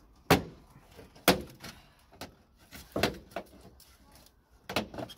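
Sharp plastic clicks and knocks, the two loudest about a second apart near the start and a few more later, as a car's plastic front grille panel is pulled forward off its retaining clips and lifted away.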